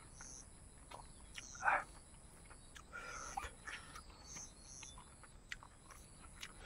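Close chewing and wet mouth clicks of a person eating rice and pork, with a brief louder smack about two seconds in. Under it runs a steady high insect drone with short high chirps repeating every half second or so.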